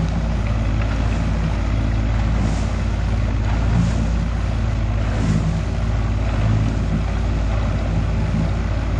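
A 90 hp outboard motor running steadily as the boat moves along at trolling speed, with the wash of water along the hull and wind on the microphone.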